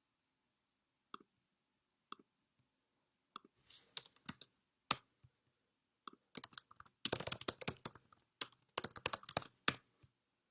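A series of sharp clicks and clattering, sparse at first, then coming in quick dense runs.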